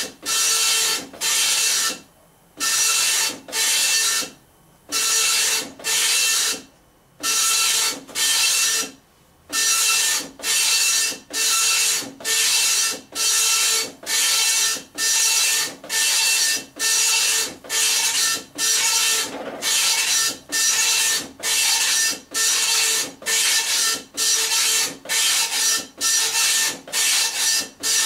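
Dot matrix printer printing a picture: the print head rasps across the page in short passes, about two a second, with a brief gap between each. There are a few longer pauses in the first ten seconds.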